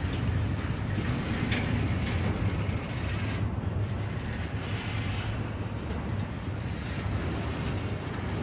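Freight train rolling past: steady noise of steel wheels running on the rails, with a few sharp clicks about a second and a half in.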